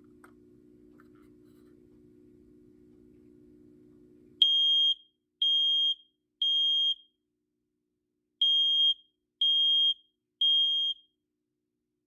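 BRK/First Alert SMI105-AC smoke alarm sounding on its test button: a high-pitched beep in the standard temporal-three pattern, three half-second beeps, a pause, then three more. A faint low hum stops as the alarm starts, about four seconds in.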